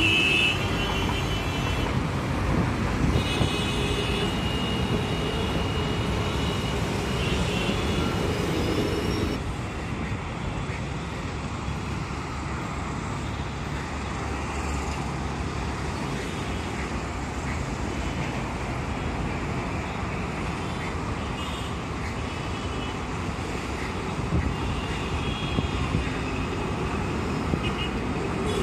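Busy city road traffic passing: a steady noise of bus, car and motorcycle engines and tyres, with vehicle horns sounding in short spells near the start and again near the end. The traffic drops a little in level about nine seconds in.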